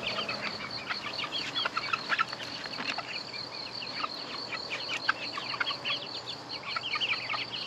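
Young chickens peeping as they feed, many short high falling chirps overlapping without a break.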